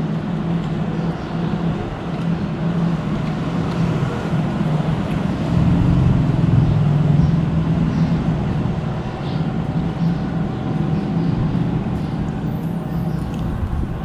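Steady low engine hum and traffic noise, swelling for a couple of seconds about six seconds in.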